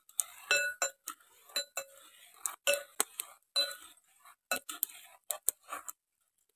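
Perforated metal ladle clinking against a large metal uruli as sago is stirred in boiling water to keep it from sticking: a quick, irregular run of short ringing metal clinks that stops near the end.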